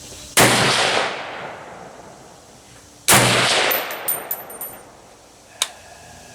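Two shots from an M1A semi-automatic rifle firing .308 Hornady American Gunner 155-grain ammunition, about two and a half seconds apart, each followed by a long echoing tail. After the second shot comes a quick run of light metallic clinks, and a single sharp click near the end.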